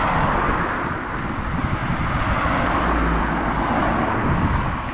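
Steady rush of wind and rolling road noise picked up from a bicycle moving alongside a runner, with low rumble from wind on the microphone.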